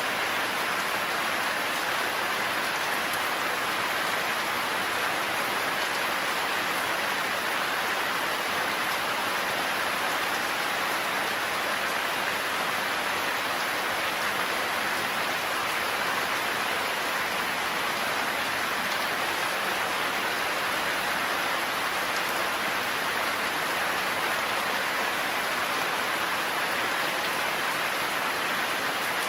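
Heavy rain falling in a forest, a steady even hiss of drops with no thunder.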